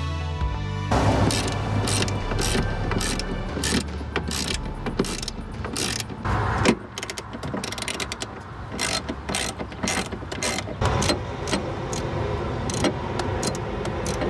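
A short bit of music ends about a second in. Then come hand tools on fasteners at the truck's firewall: a wrench ratcheting, with many quick metallic clicks and clinks at uneven spacing.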